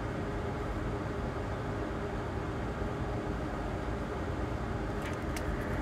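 Steady low background noise of a workbench, like a fan running, with a couple of faint clicks about five seconds in.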